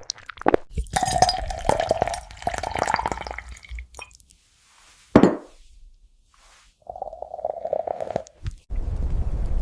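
Clinking and clicking like tableware, in several short stretches, with a sudden loud swish about five seconds in and a steady low rumble starting near the end.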